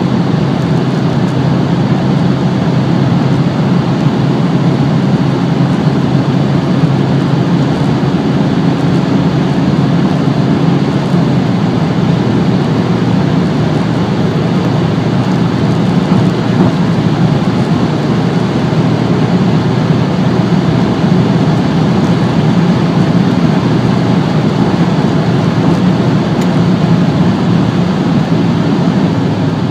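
Cabin noise of a 2016 Škoda Octavia III 2.0 TDI four-cylinder turbodiesel at full throttle above 200 km/h: steady wind and road roar over the engine hum. About eleven seconds in, the engine note drops a little as the car goes up into sixth gear.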